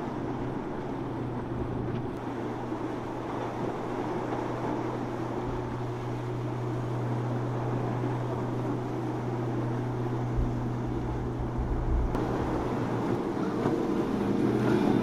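Motorboat engine running steadily as a low drone, under a hiss of wind and water. It grows louder over the last couple of seconds.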